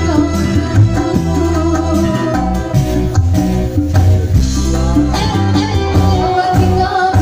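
Live dangdut band music: a woman singing into a microphone over the band, with kendang hand drums keeping the beat.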